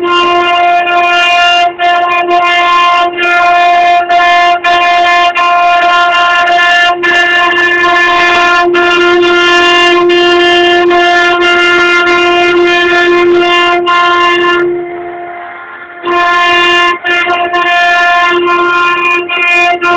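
Six high-speed router spindles of a multi-head CNC relief carving machine whining at a constant pitch as they cut wooden panels. The sound briefly dips and turns duller about fifteen seconds in.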